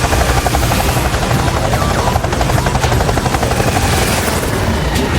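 Helicopter flying, its rotor chop a rapid, steady beat over a heavy engine rumble.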